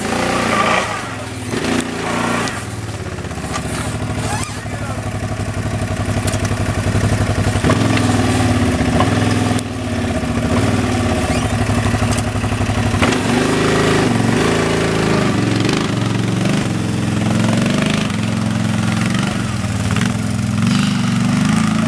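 ATV engine revving up and down under load as the quad climbs a steep, rutted dirt trail, its pitch rising and falling over and over.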